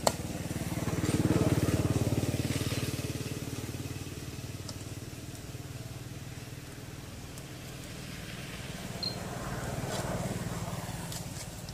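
A small engine running with an even pulse, growing louder about a second in, easing off, then swelling again near the end.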